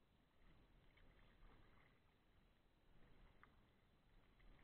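Near silence: faint water sounds of a kayak being paddled on a river, with a few soft paddle drips and splashes.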